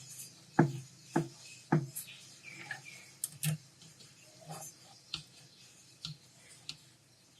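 Light, sharp clicks and taps of small repair tools handled on a workbench: three louder clicks about half a second apart early on, then fainter, irregular ticks.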